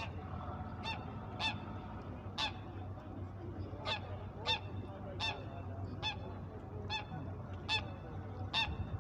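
Goose honking: a run of about ten short honks, roughly one a second, over a low steady hum.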